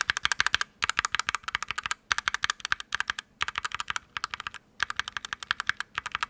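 Alpaca and H1 linear mechanical switches being pressed rapidly on a brass-plate KBD67mkii keyboard with GMK keycaps. The keystrokes come in quick runs of clacks, about five runs with brief pauses between them, played so the two switches' depth of sound can be compared.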